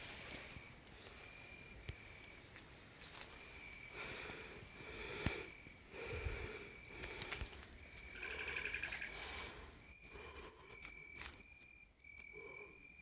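Night insects, crickets by the sound of it, chirping: a steady high trill goes on throughout, with a lower chirp that comes and goes. A few sharp clicks and soft knocks come through, most around the middle.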